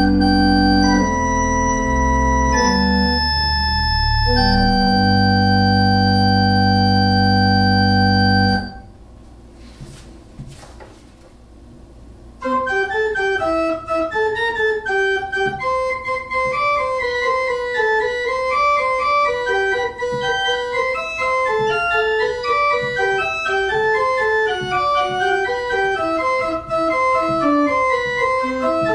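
Pipe organ: a full sustained chord with deep pedal bass is held and then released about eight and a half seconds in. A few faint clicks follow in a quiet gap of about four seconds, then quick, light notes start in the middle and upper range without pedal bass.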